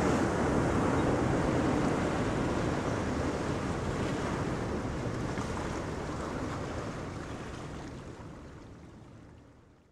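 Wind buffeting the microphone over choppy sea, with the steady wash of small waves. The sound fades out over the last few seconds.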